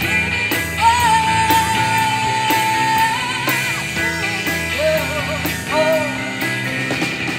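Live rock band playing: drums keeping a steady beat, bass guitar and electric guitars, with one long held high note about a second in, followed by shorter bending notes over the top.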